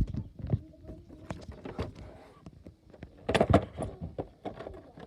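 Handling noise from the recording phone or camera being moved and repositioned: a run of knocks, taps and rubbing, loudest about three and a half seconds in.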